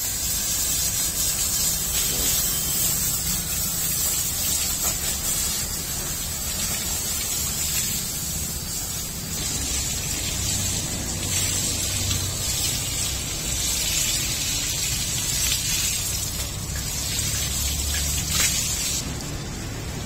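Water spraying from a hand-held hose over a cow, a steady hiss with splashing onto the animal and the wet floor, cutting off near the end.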